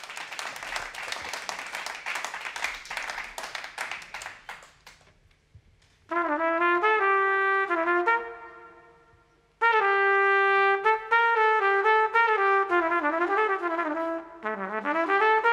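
Audience applause dies away over the first few seconds. Then an unaccompanied jazz trumpet plays a short phrase, and after a pause a longer one with some sliding, bent notes.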